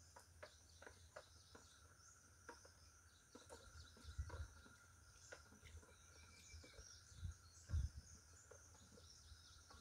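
Near silence: faint steady insect chirring, with a few soft scattered clicks and low thumps.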